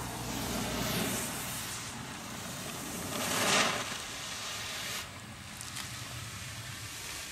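Handheld green smoke firework hissing as it burns and pours out smoke, swelling about three seconds in.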